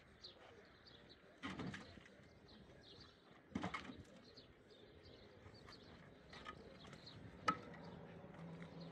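Small birds chirping faintly and repeatedly, with a few brief noises and one sharp click near the end.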